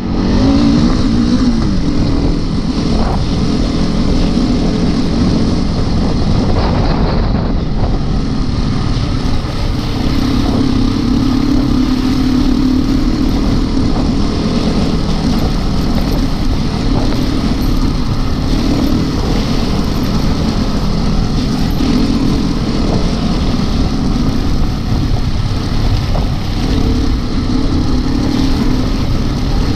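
Off-road trail motorcycle engine running on the move, steady and loud, its note rising and falling a little with the throttle, heard close up from a camera mounted on the bike.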